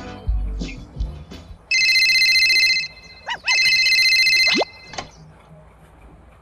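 Two loud electronic ringing tones, each held about a second with a short gap between, several high pitches sounding together like a telephone ring. A short rising glide follows right after. Music sounds in the first second or so.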